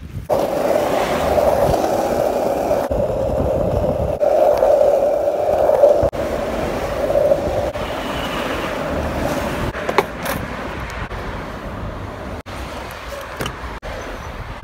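Skateboard wheels rolling on pavement, a steady rough rumble for about seven seconds, then easing off into quieter street traffic. A single sharp knock comes about ten seconds in.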